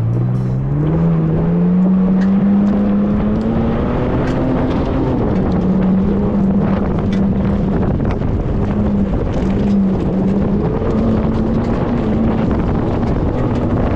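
Ford Bronco Raptor's twin-turbo V6 engine accelerating on a dirt course. The engine note climbs over the first couple of seconds, then holds high, dipping about five seconds in and rising slightly a few times as the throttle is worked, over a steady rush of wind and road noise.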